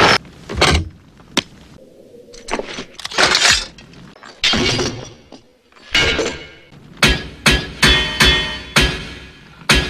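Film sound effects of crashing and breaking, then a run of regular sharp strikes, about two a second, each leaving a metallic ring like hammer blows on metal.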